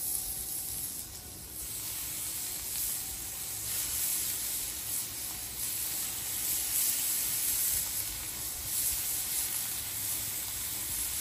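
Seasoned boneless chicken thighs sizzling on a hot flat-top griddle as pieces are laid down one after another: a steady frying hiss.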